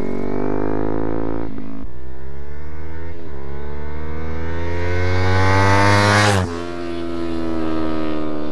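Kawasaki Ninja 300's parallel-twin engine through an Akrapovic carbon-fibre slip-on exhaust with the noise killer removed, a loud deep sound, accelerating hard. The revs climb and drop back at gear changes about two and three seconds in, then climb for a long pull before dropping sharply about six and a half seconds in and running steadier.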